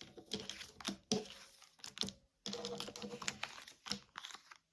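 Tarot cards being handled: a quick run of clicks and flicks as cards are drawn from the deck and laid down, with a stretch of denser rustling and sliding a little past halfway.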